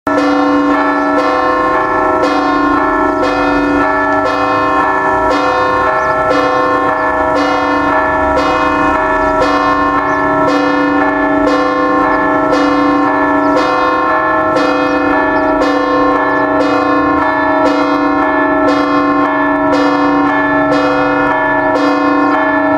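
Church tower bells ringing a repique, a festive peal of rapid, evenly repeated strokes, a little over one a second. Each bell's tones ring on and overlap with the next strokes.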